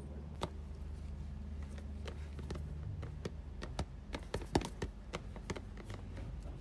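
Quiet handling noise: scattered light taps and clicks as a hand puppet and clothing are moved, with a cluster of them about four to five seconds in, over a low steady hum.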